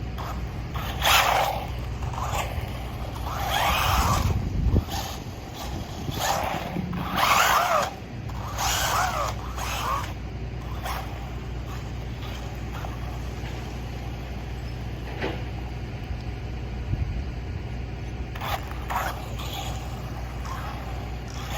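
Brushless electric motor and drivetrain of a 1/16-scale RC jeep whining in several short bursts that rise and fall in pitch as it speeds up and slows down, over the first ten seconds or so. Then it goes quieter, with a couple more brief bursts near the end.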